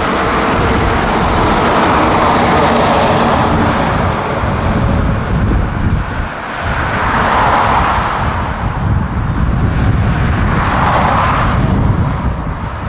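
Boeing 787-8 jet engines at takeoff thrust: a loud, continuous roar with a deep rumble. It swells several times as the airliner rolls down the runway, lifts off and climbs away.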